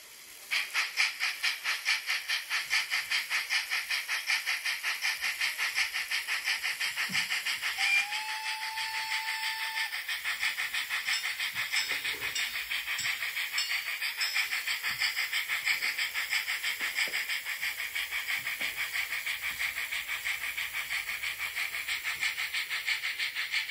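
Sound-fitted H0e narrow-gauge steam locomotive model, its decoder playing steady steam chuffs of about three to four a second through the model's small onboard speaker as it runs. About eight seconds in it sounds one whistle of about two seconds.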